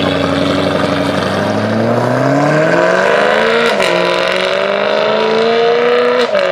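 BMW E92 M3's V8 accelerating away hard. The revs climb steadily, drop sharply at an upshift about three and a half seconds in, then climb again to a second upshift near the end.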